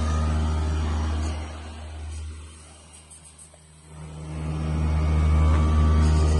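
CNC foam cutting machine's electric motors running with a steady low hum. The hum dies down about two seconds in, then builds back up to full level around five seconds in.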